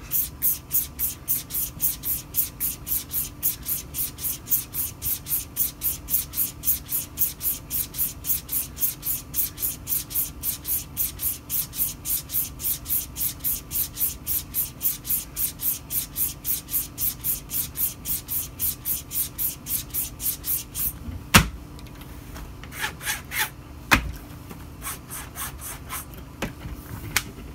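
Thiers Issard straight razor stropped on a hanging leather strop, fast even strokes at about three a second: the final stropping after finishing on a natural stone. The strokes stop about two-thirds of the way in, followed by a sharp click, a few more quick strokes, and a second click.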